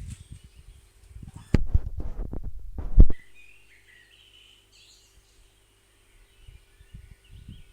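Small birds chirping and calling. About one and a half seconds in, a loud low rumble with sharp knocks buffets the microphone for about a second and a half, then cuts off suddenly, leaving only the birdsong.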